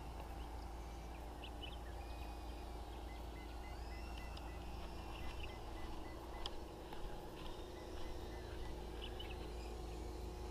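Birds calling outdoors, with scattered chirps and short gliding calls over a faint steady hum and low wind rumble.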